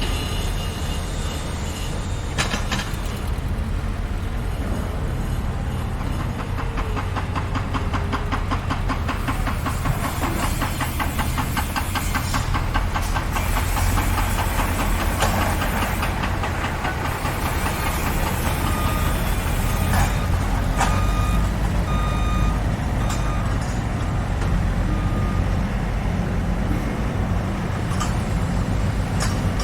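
Heavy construction machinery and truck engines running with a steady low rumble; a fast, even mechanical rattle runs through the middle, and a few short beeps sound about twenty seconds in.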